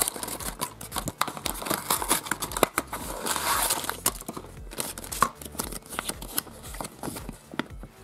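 Hands opening a small cardboard surprise box and handling the plastic wrapper inside: irregular crinkling, rustling and tearing of paper and plastic packaging, busiest about three to four seconds in.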